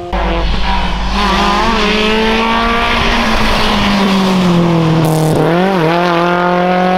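Race-prepared BMW E36 3 Series saloon's engine running hard at high revs as the car accelerates through a corner and away. The revs dip and climb again about five seconds in.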